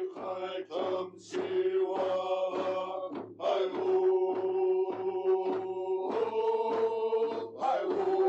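Chanted singing, with voices holding long pitched notes over a steady drum beat of about three strokes a second.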